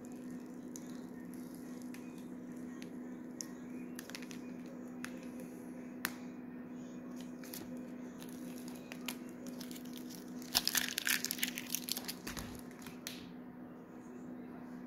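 Thin self-adhesive vinyl film being peeled off a contour-cut printed sticker by hand: scattered soft crackles and ticks as the adhesive lets go, with a denser burst of crinkling crackles about ten to twelve seconds in.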